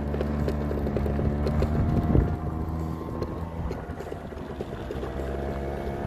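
Electric motor of a small battery-powered vehicle running with a steady hum, dipping slightly in pitch about halfway through, while the wheels knock and rattle over rough ground.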